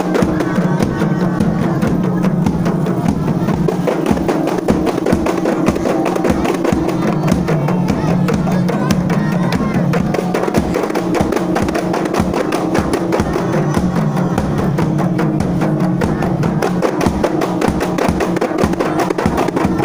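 A group of rebana frame drums beaten by hand in a fast, steady rhythm, over a steady held tone.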